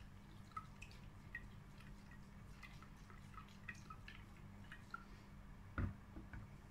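Coffee and sugar water sloshing faintly in a glass jar as the jar is swirled to dissolve the sugar, with many small liquid plinks. The jar is set down on a wooden table with a single dull knock near the end.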